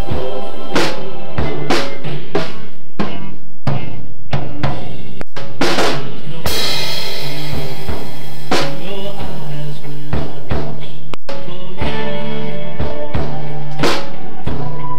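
Acoustic drum kit played in a steady rock beat: kick drum, snare and tom hits, with cymbal crashes.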